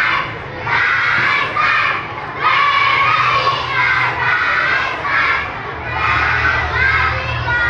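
A group of children shouting and cheering together, their voices swelling and dropping in waves about a second apart.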